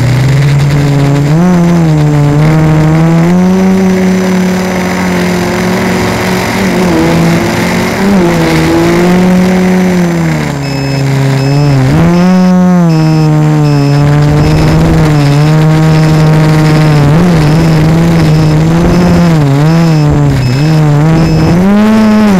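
Quadcopter's four A2212 1000Kv brushless motors driving 10x4.5 propellers, heard from a camera fixed directly to the frame: a loud, continuous prop hum whose pitch rises and falls as the motors change speed in flight.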